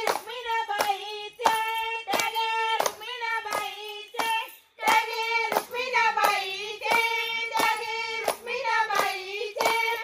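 High voices singing a folk melody in unison with long held notes, over steady rhythmic hand clapping about twice a second: the sung accompaniment to a traditional Indian folk dance.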